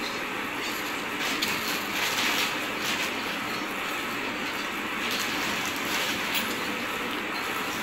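A plastic shopping bag rustling and crinkling as a hand rummages through the clothes inside it, with irregular louder crackles.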